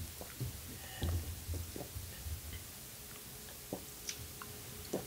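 Quiet eating at the table: scattered soft clicks and mouth smacks of chewing and of fingers picking at boiled lobster and shrimp, with a few dull low bumps.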